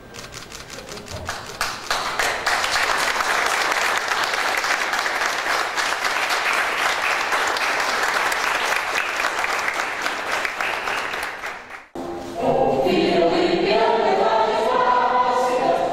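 A crowd applauding, building up in the first two seconds and fading just before an abrupt cut about twelve seconds in. After the cut, a choir sings.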